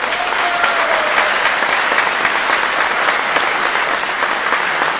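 Audience applauding steadily after a speech: many hands clapping at once in a dense, even wash.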